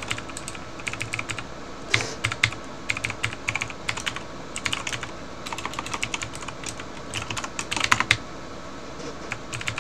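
Computer keyboard typing: quick runs of repeated key taps, as when stepping the cursor line by line with the same key, with a few louder strokes about two seconds in and near the end.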